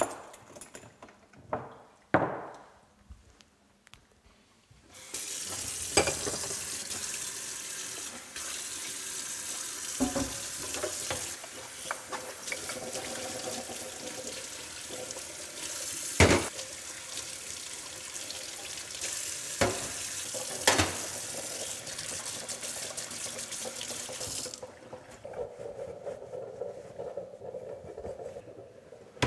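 Kitchen tap running into a stainless steel sink while glasses are rinsed, with several sharp clinks and knocks of glassware. The water starts about five seconds in and stops a few seconds before the end, leaving softer handling sounds.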